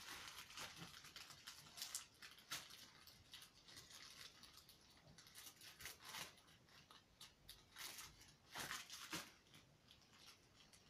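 Scissors cutting open a plastic mailing bag: a run of faint, irregular snips.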